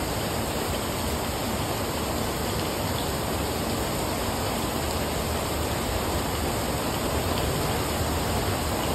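Heavy rain falling on a brick patio and garden plants: a dense, steady hiss of rain.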